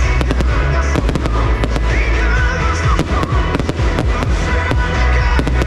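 Fireworks bursting and crackling in rapid succession, many sharp bangs a second, over loud pop music with a heavy bass beat.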